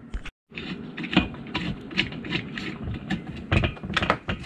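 Irregular clicks, taps and rubbing from hands handling a diesel heater's plastic housing and a screwdriver on a desktop, with a denser run of clicks near the end.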